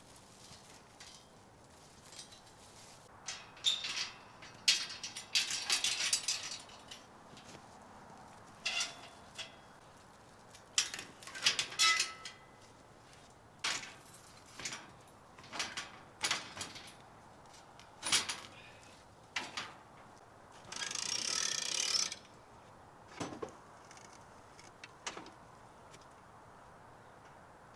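Scattered mechanical clicks and rattles at irregular intervals, with a short rustling burst about three quarters of the way through.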